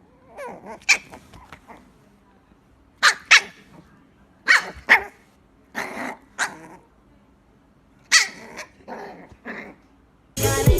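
A dog barking in short single and double barks, in clusters with quiet pauses between them.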